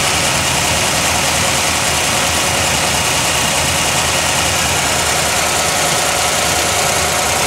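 1980 Chevrolet Corvette V8 idling steadily, an engine the owner says is not running as it should.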